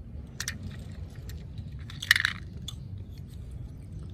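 Light clicks and knocks of small die-cast metal toy cars being handled and set down on a concrete ledge, the loudest knock about two seconds in, over a low steady background rumble.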